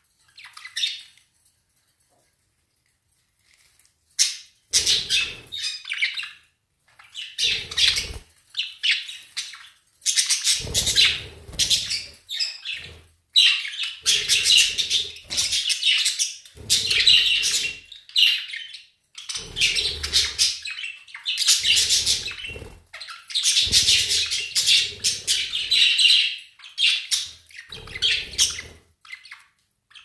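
Pet budgerigars chattering and chirping in irregular bursts, starting about four seconds in after a brief quiet spell.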